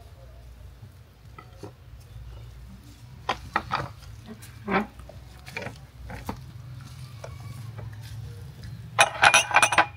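Plates and glassware knocking and clinking on a table as serving dishes and a glass juice jug are handled: a few separate knocks through the middle, then a quick flurry of clinks near the end. A low steady hum runs underneath.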